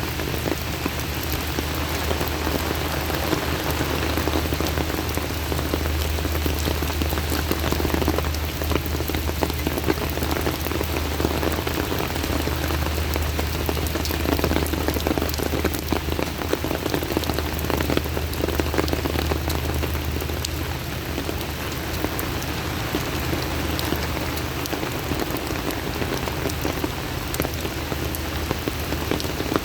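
Heavy rain falling steadily, a dense patter of drops hitting the ground and surfaces, with a steady low rumble underneath.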